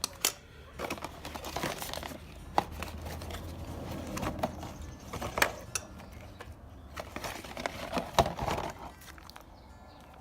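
Packaging crinkling and rustling with scattered sharp clicks, as new crankshaft bearings are handled.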